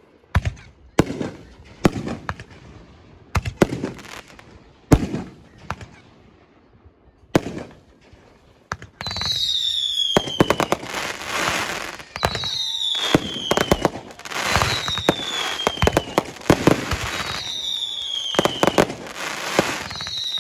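Fireworks display: separate sharp bangs about once a second, then from about nine seconds in a dense, continuous barrage of bangs and crackle with short whistles that fall in pitch, repeating every second and a half or so.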